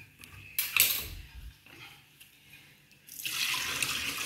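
A short splash of water about half a second in, then from about three seconds in a kitchen tap running steadily into a stainless steel sink.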